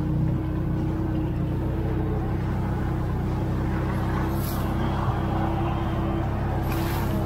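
Engine of an off-road vehicle running at a steady low speed with an even hum as a dog team pulls it along a muddy trail, with brief bursts of hiss about four seconds in and near the end.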